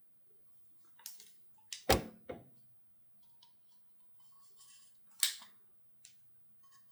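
Objects being handled: a few sharp clicks and knocks, the loudest about two seconds in and another a little after five seconds, with small ticks and rustles between.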